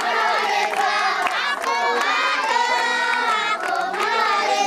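A crowd of children shouting and cheering, many voices at once, with scattered hand claps.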